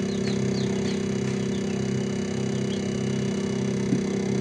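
Small egg incubator running during its automatic egg-turning cycle, giving a steady motor hum. Short, high, falling peeps of newly hatched chicks are heard over it, and there is a small tap near the end.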